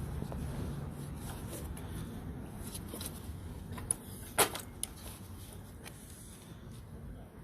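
Handling noise of small engine parts being fitted by hand: low rubbing and shuffling, with one sharp click a little over four seconds in and two lighter knocks around it.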